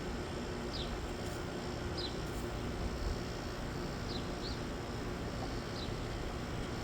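Steady hum and whir of an outdoor air-conditioner unit running, with a faint steady tone under it. A bird gives short, high, falling chirps about six times over it.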